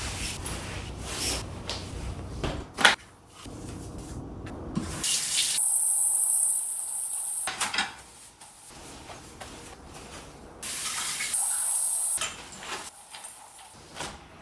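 Cleaning sounds from running tap water and hissing spray, in short cut-together stretches, with two bright spray-like hisses of a second or two each. A sharp knock or clatter about three seconds in, and a few lighter knocks later.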